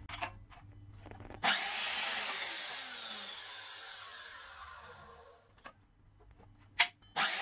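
Electric chop saw (mitre saw) switched on about a second and a half in, its blade cutting a length of 19 by 38 mm sawn timber, then winding down over about four seconds. A couple of sharp knocks follow, and the saw starts again near the end.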